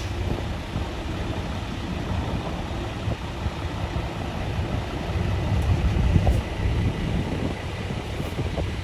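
Decorated Japanese art truck's diesel engine running close by as the truck rolls slowly past, a steady low rumble.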